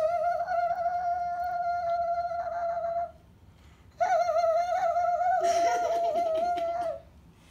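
A child's high voice holding two long sung or squealed notes, each about three seconds with a short break between, the second wavering slightly.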